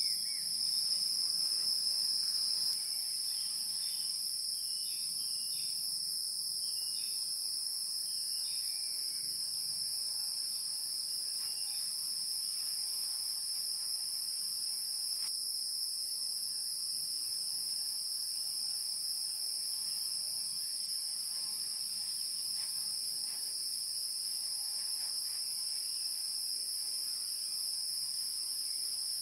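Steady, high-pitched chorus of insects, crickets trilling without a break. It eases slightly a few seconds in.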